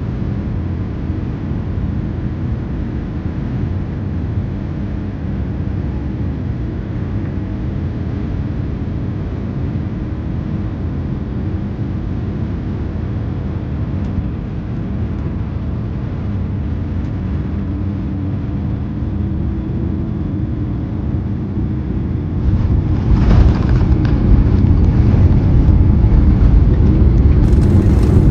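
Cabin noise of a Boeing 787-8 airliner on final approach: a steady rumble of engines and airflow. Near the end it jumps louder and deeper as the wheels touch down and the jet rolls out on the runway with its spoilers raised.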